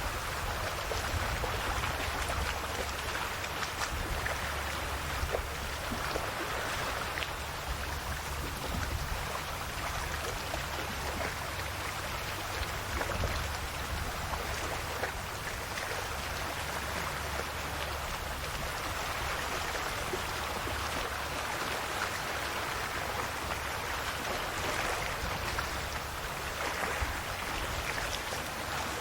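Calm sea waves lapping and washing on the shore: a steady splashing hiss that swells and eases every few seconds.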